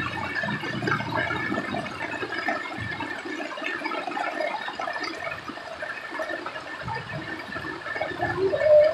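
Heavy rain falling on a street, with rainwater running over the road surface as an even hiss. Near the end a brief rising tone stands out as the loudest moment.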